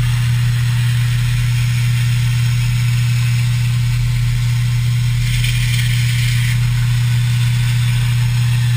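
CNC plasma cutting table at work: a loud, steady low hum with a hiss above it, the hiss growing brighter for about a second past the middle.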